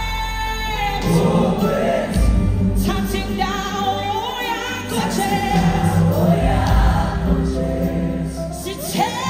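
Live gospel music: a woman sings lead into a microphone with a choir and band behind her, over a steady bass line.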